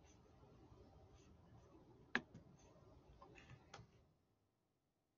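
Near silence, broken by a few faint computer-mouse clicks, the sharpest about two seconds in.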